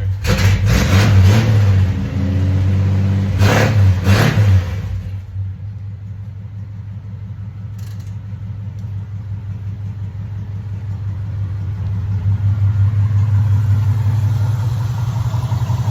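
1980 Jeep CJ7's carburetted engine running just after a cold start on a little choke. It surges louder twice in the first few seconds, then settles into a steady idle.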